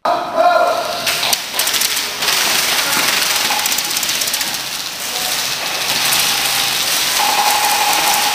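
Airsoft guns firing on the field: rapid runs of sharp clicks over a steady hiss of noise.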